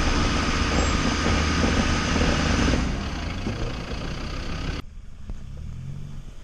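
Land Rover Discovery's engine running close by as the 4x4 crawls over a rough, rutted dirt track, quieter from about three seconds in. Near the end it cuts off suddenly to a much fainter engine hum from other off-road vehicles further away.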